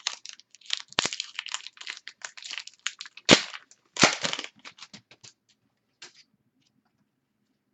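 Trading card pack wrapper crinkling and being torn open by hand, with a few sharp snaps, the loudest about three seconds in. It dies away about six seconds in.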